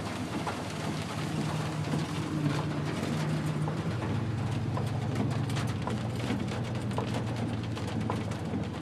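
Rain pattering on a car's roof and windshield, heard from inside the cabin, with many small scattered ticks over the steady low hum of the car.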